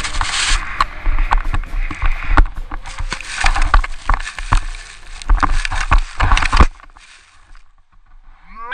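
A skier tumbling through deep snow in a crash, picked up by a camera worn on the body: a rush of snow and wind noise with many knocks and thuds, stopping about seven seconds in. Near the end a person's voice starts, rising and falling in pitch.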